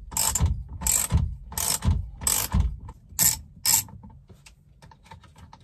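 A ratchet wrench with an M12 triple-square (XZN) bit clicking in short runs on each return stroke, about one every two-thirds of a second, as the steering-wheel bolt is unscrewed. After about four seconds only faint, scattered ticks remain as the loosened bolt comes free.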